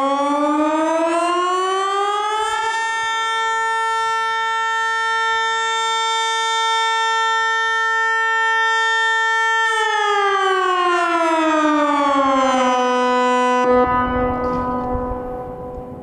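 Teho-Ulvo D1200 electronic siren sounding its test signal. The tone glides up over about three seconds, holds one steady pitch for about seven seconds, then glides back down. It cuts off about fourteen seconds in and its sound fades over the last couple of seconds.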